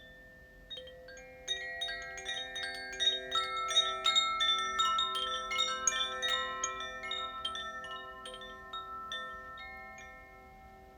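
Koshi chimes, the water and earth element chimes, swirled so the clapper strikes many bright, ringing tones. The strikes start under a second in, crowd together around the middle, then thin out and fade as the chimes settle.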